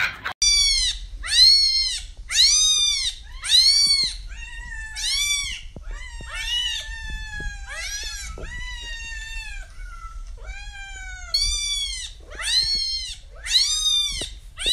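Cats meowing over and over in high calls, about one a second, each rising and then falling in pitch. In the middle some longer, drawn-out meows overlap the shorter ones.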